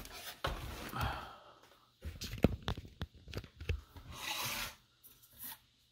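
Handling noise from a helmet and camera being moved about on a wooden desk: a string of light knocks and clicks, then a short scratchy noise about four seconds in.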